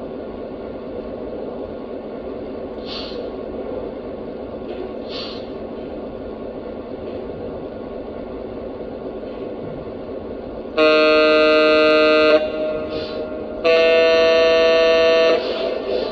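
Lionel Legacy EMD GP7 O-scale model locomotive's onboard sound system playing a steady diesel idle with two short air hisses, then two long blasts of a multi-chime air horn, about 11 and 14 seconds in.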